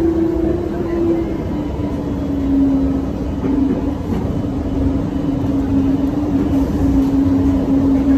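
Automated people-mover train heard from inside the car while running: a steady rumble of running noise under an electric drive whine. The whine falls a little in pitch over the first couple of seconds, then holds steady.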